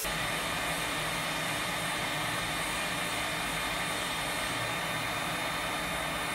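Hot-air rework gun blowing steadily, a constant airy hiss, while heating a chip on a router circuit board to desolder it.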